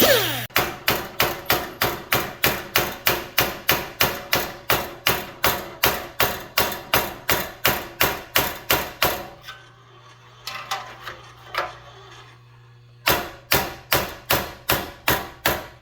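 Hammer blows on a sheet-steel floor pan, about four a second, to knock the panel loose at its ground-down spot welds. The blows run for about nine seconds, stop for a few seconds, then start again near the end.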